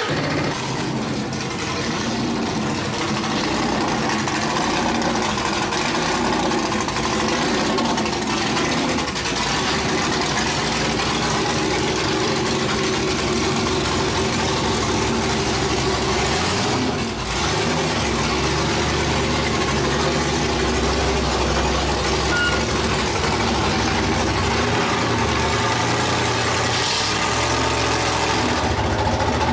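A mid-engine prerunner race truck's dry-sump engine running, mostly at a steady idle, from the moment it cuts in until the truck creeps out of the shop.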